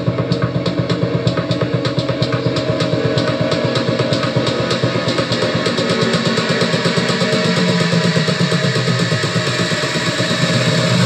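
Music with a fast, even drum beat and heavy bass played loud through a homemade 2.1 Class D amplifier driving two bookshelf speakers and an 8-inch subwoofer.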